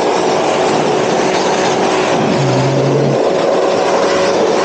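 Electric pressure washer running, its motor humming steadily under a loud hiss of water as the nozzle sprays a narrow jet. A short, lower hum joins in about halfway through.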